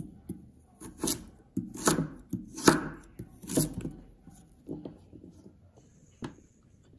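A kitchen knife slices through raw sweet potato and knocks on a wooden chopping board. About a dozen irregular cuts crowd the first four seconds, the sharpest near three seconds in. A couple of lighter cuts follow, then one last sharp knock about six seconds in.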